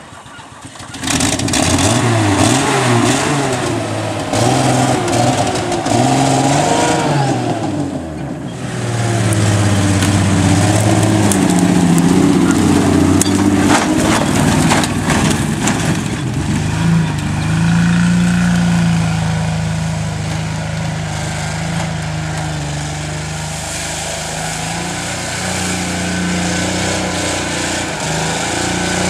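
Land Rover engine revving up and down repeatedly while the 4x4 works through loose sawdust, then running at a steadier pitch for the second half, with a few sharp clicks about halfway through.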